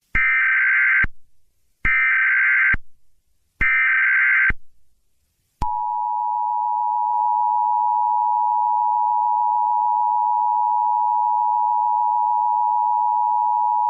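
Emergency Alert System tones: three bursts of about a second each of the harsh, buzzing SAME digital header, then the steady two-tone EAS attention signal held for about eight seconds. The attention signal announces an emergency alert, here a tornado warning.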